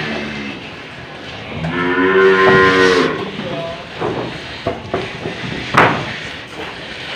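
A cow moos once, a long low call of about a second and a half. A few sharp knocks follow, the loudest near the end.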